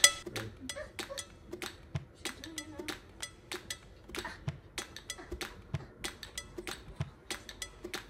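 Scattered light clinks and knocks of hard household objects, several a second at an uneven pace, with the ring of dishes or cutlery.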